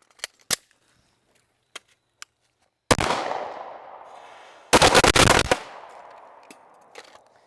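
Fireworks going off: a few faint pops, then one loud bang about three seconds in that echoes away over nearly two seconds. A second or so later comes a rapid crackling string of sharp bangs, far too fast for pistol fire, which also echoes away.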